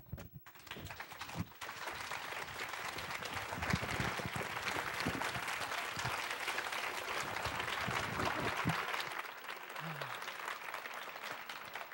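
Audience applauding, starting about half a second in and dying down after about nine seconds.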